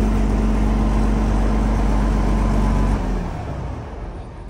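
Large vehicle engine running steadily at constant speed. About three seconds in, its note sags and the sound dies away over a second or so.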